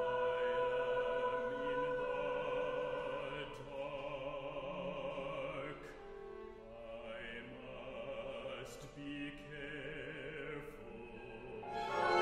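Operatic singing with wide vibrato over a small contemporary chamber ensemble. Strings and other instruments hold sustained tones, with a few sharp percussion strikes.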